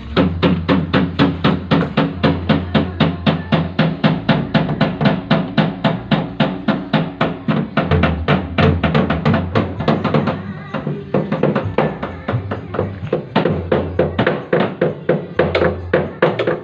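Music with a fast, steady drum beat, about four to five hits a second, over a bass line.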